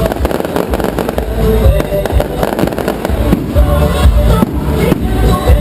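Firecrackers popping in rapid strings over loud forró music.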